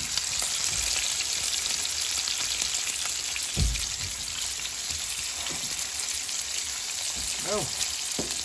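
Trout fillets frying in hot oil in a frying pan: a steady sizzle, with one dull knock about three and a half seconds in.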